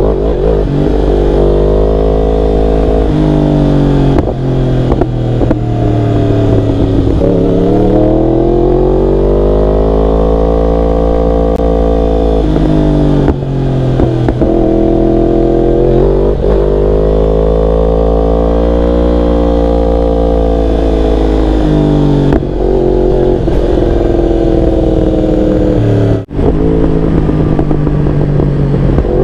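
Yamaha R1 sport bike engine on a ride, its pitch repeatedly climbing under acceleration and dropping at gear changes or when the throttle is rolled off, with a steady low rumble of wind underneath.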